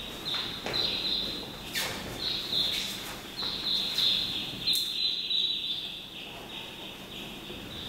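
Short, squeaky scraping strokes repeating about twice a second, as a drawing tool is worked across a smooth surface, with a couple of sharp clicks in between.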